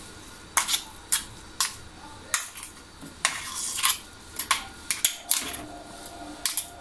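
Metal spoon scraping and clinking against a stainless steel bowl, about a dozen short irregular clinks and scrapes, as a crushed coconut mixture is scooped out into a pot.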